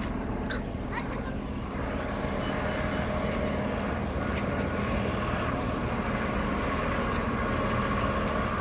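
Amtrak Northeast Regional passenger train rolling past, a steady rumble with a faint hum of steady tones that grows a little louder from about two seconds in.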